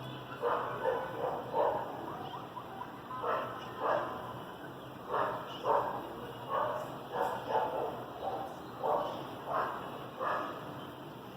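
A dog barking repeatedly: about a dozen short barks, some in quick pairs with short pauses between groups.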